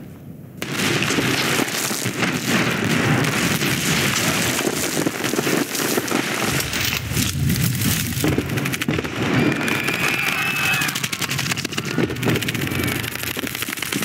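Film sound effects of an earthen ceiling cracking and crumbling as it is broken through from above: dense crackling with many sharp impacts over a low rumble, starting about half a second in.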